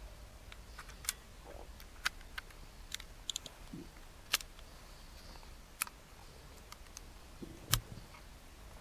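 Faint metallic clicks and taps at irregular intervals as a Tokarev TT-33 pistol is reassembled by hand and its slide stop is pushed back into the frame. The loudest click comes near the end.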